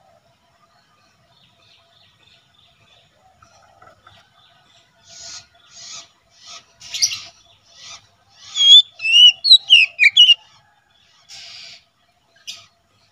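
Oriental magpie-robin (kacer) singing. After a few quiet seconds come short scratchy notes, then a loud run of clear whistled notes sliding up and down about two-thirds of the way in, and two more scratchy notes near the end.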